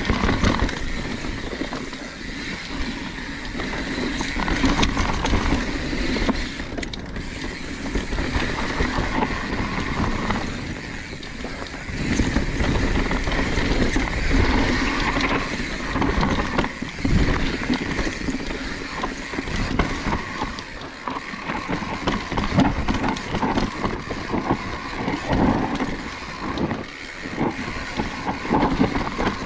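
Mountain bike ridden fast down a steep dirt trail, heard close up: a constant rumble of tyres on dirt and roots, wind on the microphone, and frequent knocks and rattles from the bike as it hits bumps.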